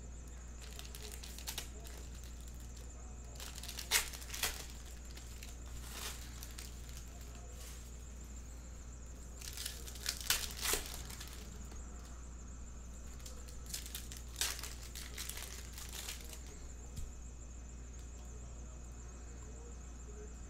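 Trading cards being handled: scattered short swishes and crinkly scrapes as cards are slid through the hand and laid down on a stack, with a steady low hum underneath.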